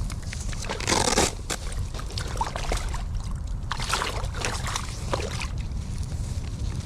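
Wind rumbling on the microphone outdoors, with a loud short rustle or splash about a second in and a few brief clatters and scrapes a few seconds later.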